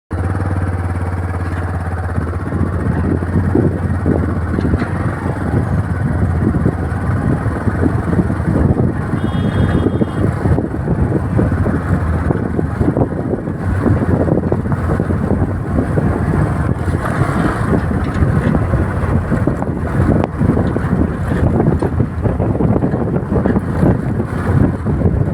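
JCB backhoe loader's diesel engine running steadily under work, a constant low hum overlaid with rough, uneven noise.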